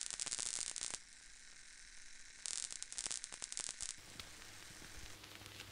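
Two short stretches of crackling static hiss, the first about a second long at the start and the second, about a second and a half long, starting about two and a half seconds in.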